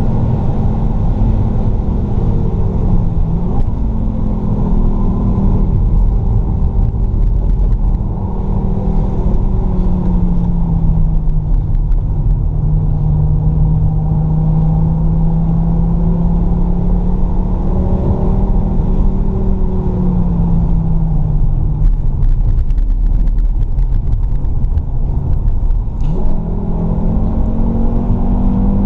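Fiat Stilo Abarth's 2.4-litre five-cylinder engine under hard driving at speed, its pitch climbing, holding high, easing off and dropping sharply at gear changes or braking about three seconds in and again near the end before climbing once more. Road and tyre noise from the wet track runs underneath.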